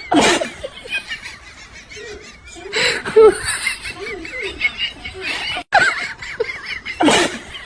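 Laughter in several loud bursts, with wavering higher-pitched sounds between them.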